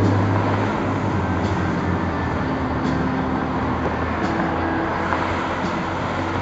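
Street traffic with a steady low engine hum from a vehicle running on the road.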